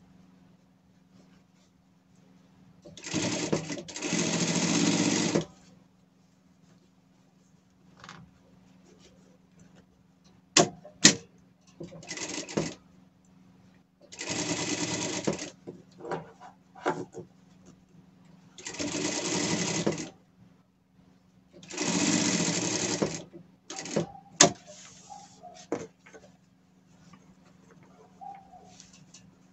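Industrial lockstitch sewing machine stitching layers of fabric in short runs of one to two seconds, about five times, with sharp clicks between the runs and a low steady hum underneath.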